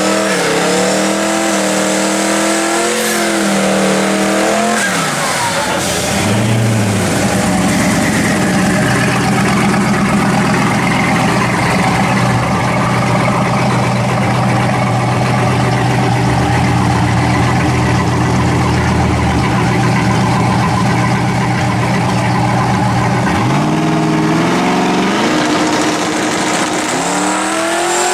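A 1979 Camaro Z28's twin-turbocharged 540 cubic-inch V8 revving in the burnout box. It is then held at high revs for about fifteen seconds through a burnout with the rear tyres spinning. It drops back and revs up again in rising steps near the end as the car moves up to stage.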